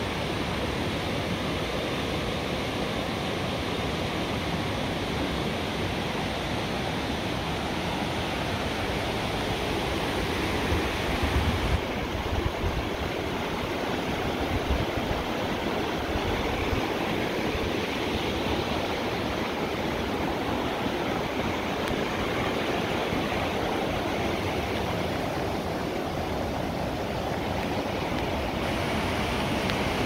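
Rocky mountain brook rushing over boulders, a steady wash of water noise, with a few low bumps about a third of the way in.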